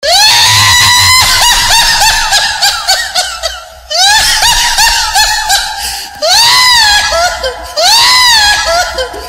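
Loud electronic DJ sound effect played through a sound system: a high pitched tone swoops up, holds and then warbles in quick arched chirps, repeated in four phrases.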